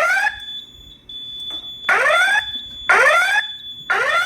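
Fire alarm voice evacuation speakers sounding a whoop-style alert tone between spoken evacuation messages. The tone comes as short rising sweeps, about one a second, with a pause after the first, over a faint steady high-pitched tone.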